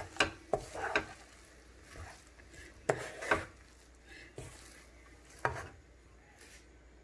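Wooden spatula stirring dry poha stuffing in a coated pan, with irregular scrapes and taps against the pan.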